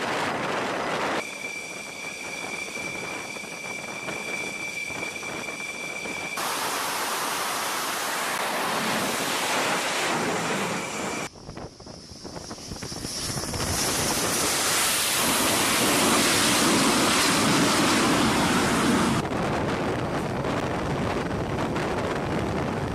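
Jet engine noise on an aircraft carrier's flight deck, broken by edits: first a steady high whine over a rush of noise, then a broad even rush; about halfway through, a Dassault Rafale M's twin turbofans swell over several seconds to the loudest part as it flies in low over the deck, with a high whine on top.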